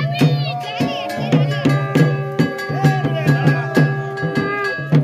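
Traditional folk-style devotional music: a steady percussion beat under a held drone, with a melody line over it.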